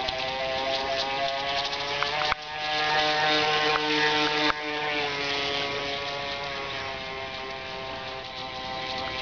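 Radio-controlled model runabout's motor and drive buzzing with a whine of many overtones, its pitch drifting as the boat changes speed; the sound changes abruptly twice, about two and four and a half seconds in. The owner calls the drive shaft badly vibrating.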